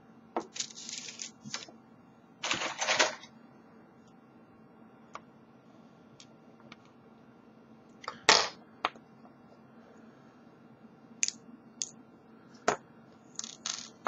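Small brass lock pins and parts of a disassembled deadbolt cylinder being handled on a wooden desk: scattered light clicks as pieces are set down and picked up, with a few short scraping rustles and quiet gaps between them.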